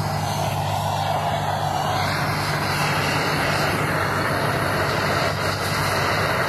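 Handheld propane torch burning with a steady hiss as its flame singes the fur off a squirrel.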